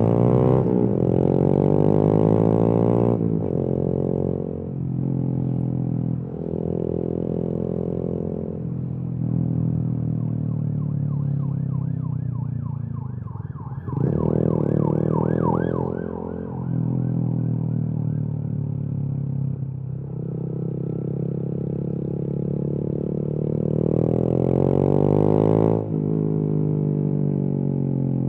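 Honda MSX/Grom 125's single-cylinder engine through a Kemimoto aftermarket exhaust, pulling through the gears: the pitch climbs, drops back at each shift or lift of the throttle, and climbs again. A siren wails faintly for a few seconds around the middle.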